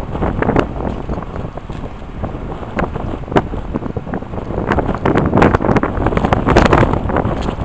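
Wind buffeting the camera microphone: a loud, irregular rumble with uneven gusts, growing stronger in the second half.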